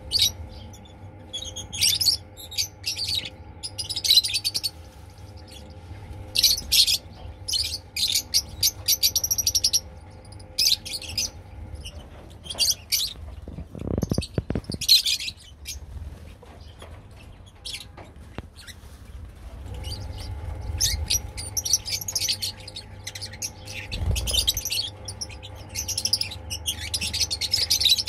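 A large flock of lovebirds (Agapornis) chirping and chattering, sharp high calls coming in dense bursts with short lulls between them. A steady low hum runs underneath.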